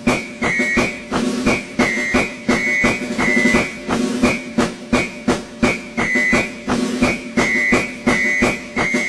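Background music with a steady beat and a short high note repeating over it.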